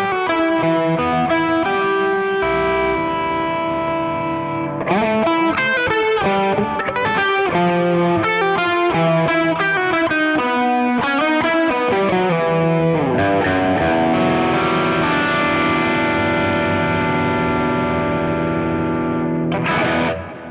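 Electric guitar played through a Klon Centaur-style overdrive pedal: quick picked notes and phrases, then a chord left ringing for several seconds, with one short strum near the end.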